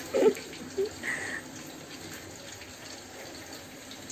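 Chicken pakoda frying in hot oil in a kadai on a gas stove, a steady sizzle, with a short voice sound near the start.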